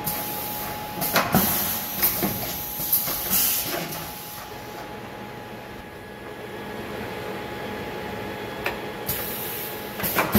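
Side-mount 16-tool automatic tool changer of a Fryer MC-10 vertical machining center cycling. A hiss starts suddenly, followed by a quick run of mechanical clunks and clicks as the carousel indexes. After a quieter few seconds, the hiss and clunks return near the end.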